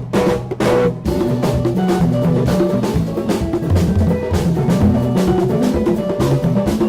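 Live band playing with a drum kit, bass drum and snare prominent over a moving bass line. Short stabbed hits with gaps open it, then about a second in the band plays on continuously.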